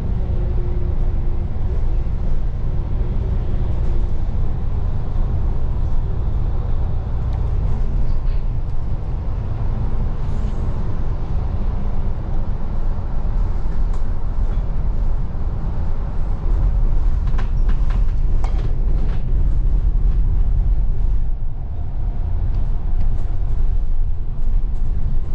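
Double-decker bus running along a road, heard from on board: a steady low engine and road rumble, with a few brief clicks about two-thirds of the way through.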